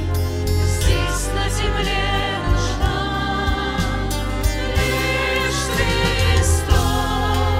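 A church worship band plays a slow song, with violins, cello, flute, keyboard, guitar and drums, and a vocal group sings over it.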